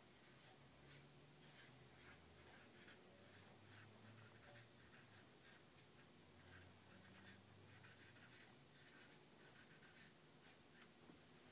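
Near silence with faint, irregular scratching strokes, a few each second, like a pen on paper, over a faint low hum.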